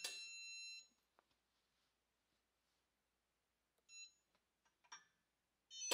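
Electronic beep tone of a CDI digital torque tester, held steady and cutting off within the first second, then near silence. About four seconds in, a short beep as the tester's button is pressed. Near the end, a sharp click as the tone starts up again.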